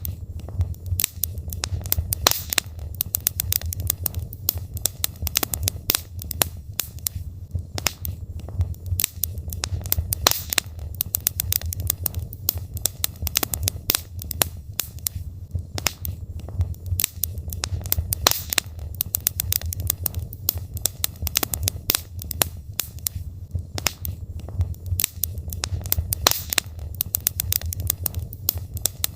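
Wood logs burning in a fireplace: dense, irregular crackling and popping over a steady low rumble of the fire.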